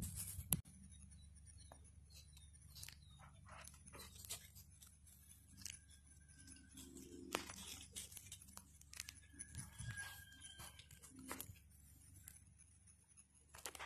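Near silence, with faint scattered clicks and rustles and a faint thin whistle heard briefly twice in the middle.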